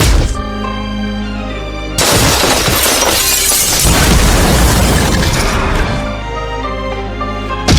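Background music overlaid with fight sound effects: a sharp hit at the start, then a loud burst of crashing noise that starts suddenly about two seconds in and lasts about four seconds, and another hit near the end.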